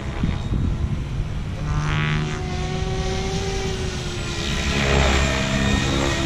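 Radio-controlled SAB Goblin Kraken 700 helicopter flying: the steady hum of its rotor blades and drivetrain, with a pitched whine that shifts a little, getting louder about two-thirds of the way in as the helicopter comes lower and closer.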